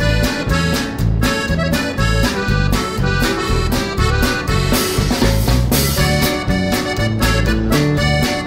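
Background music with a steady beat and a bass line stepping between notes.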